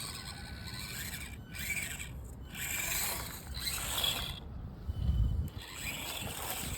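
Axial SCX24 mini RC crawler's small brushed motor and gears whirring in several short bursts as it crawls, with rubbing and scraping from the drivetrain and tires on rough ground.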